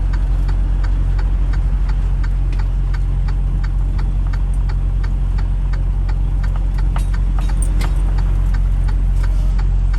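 Vehicle engine running with a steady low hum, overlaid by a regular ticking of about three ticks a second.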